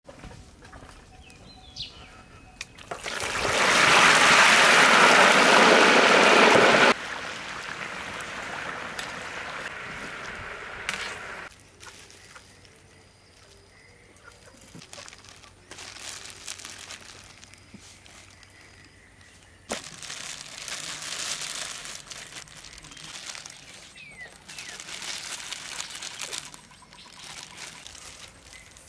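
Food-preparation sounds: a loud pouring, splashing hiss that starts a few seconds in and lasts about four seconds, then quieter rustling and handling of vegetables and ingredients.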